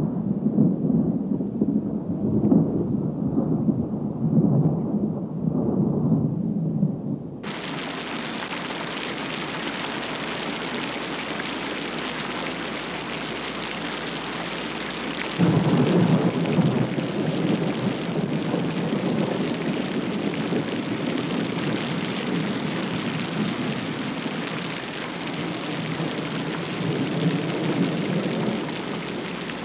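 Thunderstorm: rolling thunder rumbles, then heavy rain sets in suddenly about seven seconds in as a steady hiss. More thunder rumbles over the rain about halfway through.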